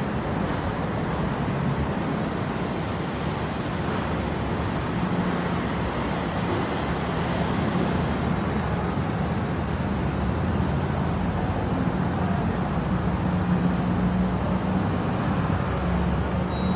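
Metro train running: a steady rumble with a low drone.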